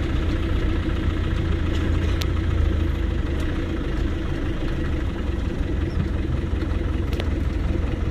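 Off-road 4x4's engine running at low speed, a steady low rumble heard from the vehicle itself.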